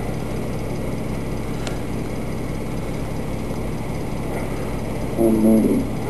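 Steady low hum and hiss of an old recording, with a short pitched sound about five seconds in.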